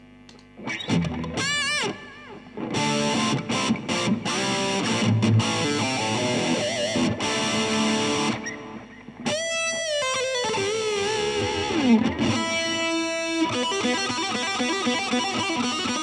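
Distorted electric guitar playing a lead solo through a boost pedal with reverb, tape echo and a slow, subtle flanger. It opens with held notes with vibrato, slides down over a couple of seconds just before the 12-second mark, then moves into fast picked runs.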